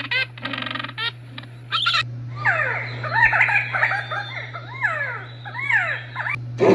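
Animal sound effects: a few short repeated calls, then many birds chirping and chattering at once, quick rising and falling notes overlapping for about four seconds.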